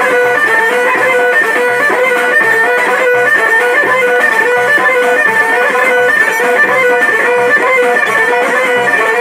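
Instrumental music: a plucked-string melody with held tones over a steady, regular low beat.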